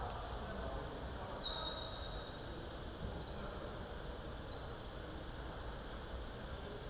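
Basketball shoes squeaking on the hardwood court floor now and then, short high chirps, some sliding in pitch, over the steady background noise of a large gym hall.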